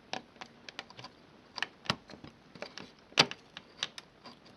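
Screwdriver tip clicking and tapping against the hood release lever's plastic clip and metal rod while prying them apart to free the rod, a string of irregular sharp clicks with the loudest a little past the middle.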